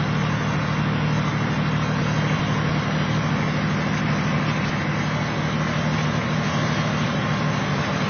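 Kenworth T600A's Caterpillar diesel engine running at a steady highway cruise, heard inside the cab as an even low drone over road and tyre noise.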